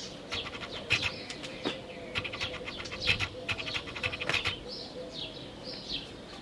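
Cloth rustling and swishing as a tallis (prayer shawl) is swung round and drawn over the head and shoulders, a quick crackly run of sounds through the first few seconds. Small birds chirp throughout, with a series of short falling chirps near the end.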